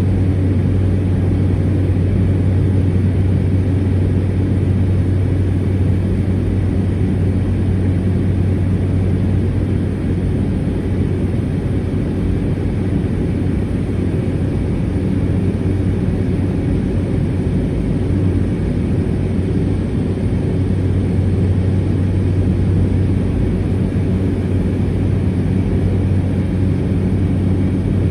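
Cessna 208 Caravan's turboprop engine and propeller droning steadily at a constant power setting, with a strong low hum.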